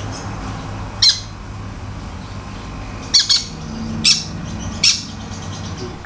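Green-cheeked conures squawking: about five short, sharp, high-pitched calls spread over a few seconds, over a low steady hum.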